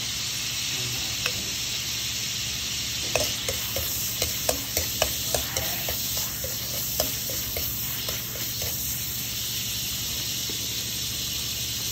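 Garlic cloves sizzling in hot oil in a metal wok, a steady frying hiss. A metal spatula stirring them clicks and scrapes against the pan, most often in the middle stretch.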